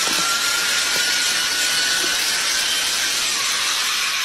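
Cordless drill running continuously at speed with a corn cob on its chuck, a steady hissing noise with a faint motor whine.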